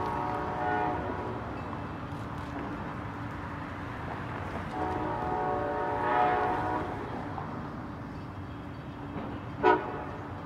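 Amtrak train's multi-tone chord horn: a long blast fading out about a second in, another long blast midway, and a short sharp toot near the end, the loudest sound. A steady low rumble of the train runs underneath.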